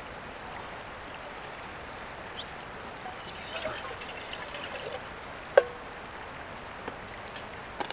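Water being poured into a cooking pot for boiling, over a steady background hiss, with one sharp ringing clink a little past halfway.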